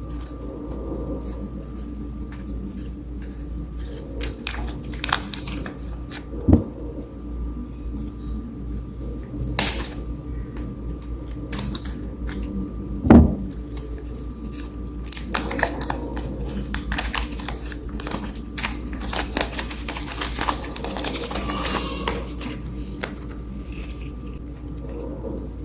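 Scattered sharp clicks and taps over a steady low hum, with two louder knocks and a busier run of quick clicks in the second half.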